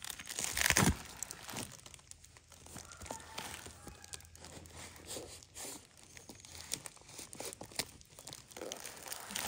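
A knife cutting and scraping through a parcel's plastic wrapping and packing tape, with irregular crinkling and tearing of the plastic; the loudest crackle comes just under a second in.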